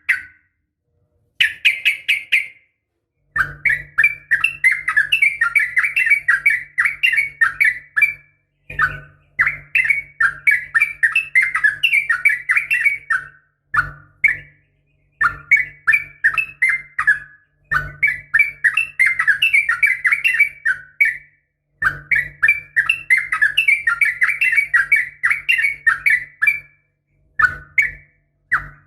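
Yellow-vented bulbul (trucukan) singing long, rapid runs of bubbly chattering notes, each run a few seconds long with short pauses between; this is the song used as a lure to set other trucukan singing. A low hum sounds under each run.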